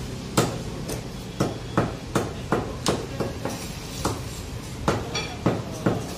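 Large butcher's knife chopping through chicken onto a wooden log chopping block: a string of sharp knocks, about two a second and unevenly spaced.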